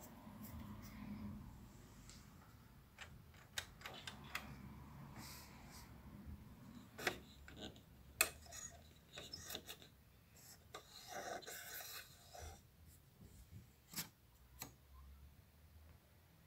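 Handling noise on a Philips N4308 reel-to-reel tape recorder: fingers rubbing on the deck's plastic and metal parts, with scattered sharp clicks and a longer stretch of rubbing about eleven seconds in.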